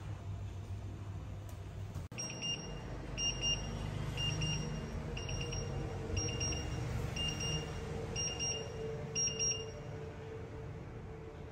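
Bosch induction hob's timer alarm beeping: a high, quick-pulsed beep about once a second, some eight times, starting about two seconds in. It signals that the set cooking time is up.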